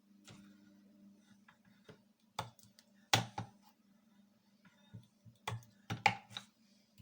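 Homemade battery spot welder firing: a series of sharp clicks and snaps, several in quick pairs, over a steady low mains hum.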